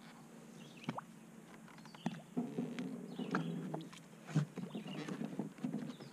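Water sloshing against the hull of a small fiberglass motorboat as it is pulled alongside by its mooring rope, with light knocks and bumps; the sloshing grows louder about two seconds in.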